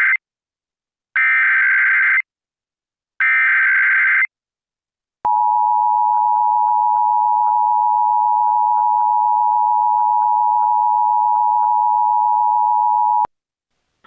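Emergency Alert System SAME header: the end of one digital data burst, then two more bursts of about a second each, a second apart. These are followed by the EAS two-tone attention signal (853 and 960 Hz together), held steady for about eight seconds and cutting off sharply. They mark the start of an AMBER Alert broadcast.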